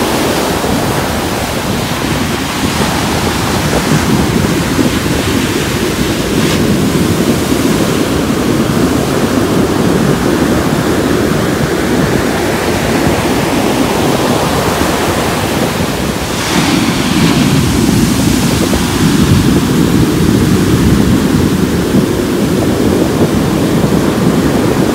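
Ocean surf breaking and washing up a sandy beach, a steady rush of waves that grows a little louder about two-thirds of the way in, with wind buffeting the microphone.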